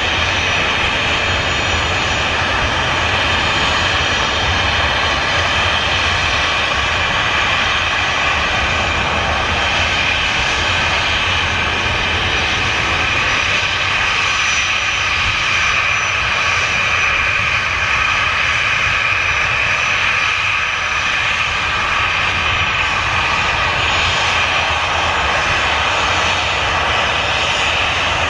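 Boeing 737 twin CFM56 turbofan engines at low taxi thrust, a steady jet whine over a rushing roar with no spool-up, as the airliner turns and taxis on the runway.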